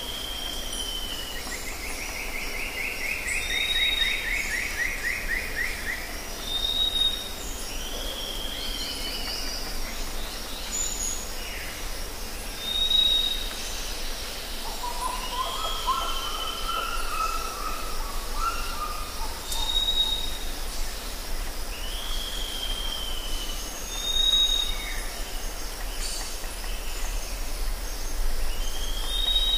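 Forest ambience of several birds calling over a steady high insect hiss. Short high whistles, each followed by a downward-curving call, repeat every few seconds; a descending trill sounds near the start, and a lower warbled call comes about halfway through.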